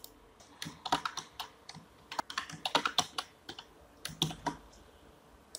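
Typing on a computer keyboard: an irregular run of quick keystrokes lasting about four seconds.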